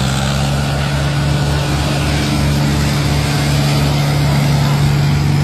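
Tractor diesel engine running steadily while it pulls a loaded trailer through river water, a constant low drone with an even, fast pulsing.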